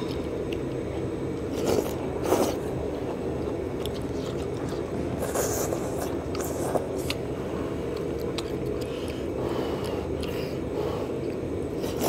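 Two people eating knife-cut noodles in soup: several short slurps, with chewing and chopsticks scraping in the bowls, over a steady low hum. The slurps come at about two seconds, two and a half seconds, and between five and seven seconds in.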